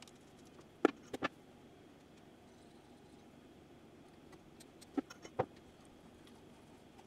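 A few sharp clicks and taps of hands and cotton swabs against a VCR's metal tape-deck mechanism during cleaning: three close together about a second in, then two or three more around five seconds in, over faint hiss.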